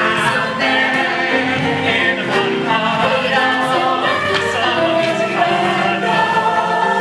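Musical-theatre song with a chorus of voices singing over the accompaniment.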